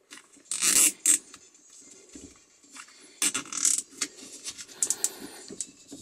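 A nylon zip tie is pulled tight around the cloth shift boot in a few short zipping pulls, about half a second and a second in and again around three seconds. A quick run of ratchet clicks comes near the end, with rustling of the boot fabric between.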